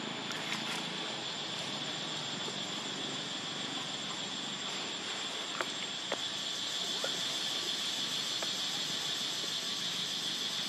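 Steady high-pitched insect drone, growing slightly louder partway through, with a few faint clicks around the middle.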